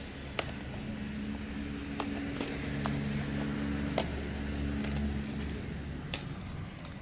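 A low engine hum swells and then fades over several seconds. Several sharp clicks come through it at irregular intervals.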